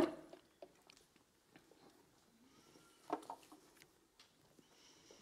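Handling noise from a lectern and its microphone: one sharp knock at the start, then scattered faint clicks and rustles.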